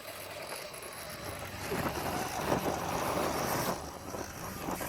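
Radio-controlled scale rock crawler driving, its electric motor and geared drivetrain running. It grows louder about a second and a half in and drops away near the end.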